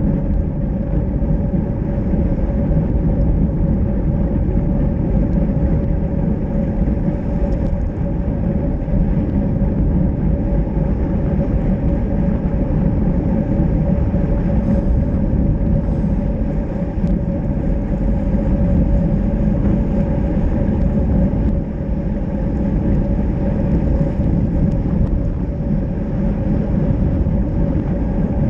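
Wind rushing over a bicycle-mounted action camera's microphone while riding at speed, mixed with tyre noise on wet asphalt, with a steady hum held underneath.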